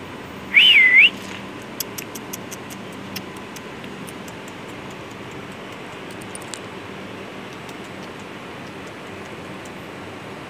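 A person whistles once to call a cat: a short, loud whistle that rises, dips and rises again. A scatter of faint light clicks follows over the next few seconds, over a steady background hum.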